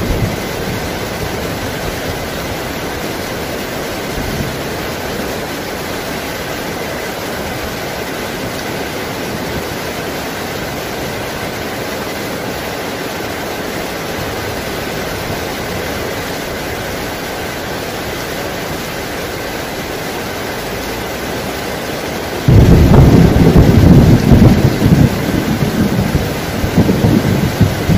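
Heavy rain falling steadily. About 22 seconds in, a sudden loud clap of thunder breaks in and rumbles on for several seconds.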